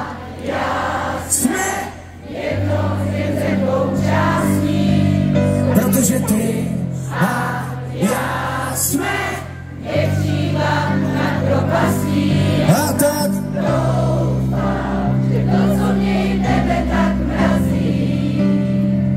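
Live band music with many voices singing together, a crowd singing along with the band.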